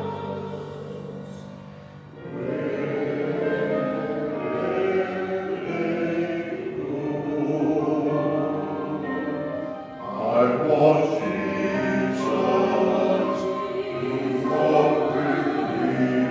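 Church choir singing with musical accompaniment, held notes in slow phrases, with short breaks between phrases about two seconds in and again near ten seconds.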